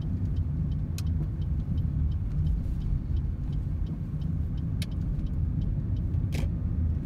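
Low, steady road and engine rumble heard inside a car driving slowly through a turn, with a light regular ticking about four times a second and three sharper knocks, about a second, five seconds and six and a half seconds in.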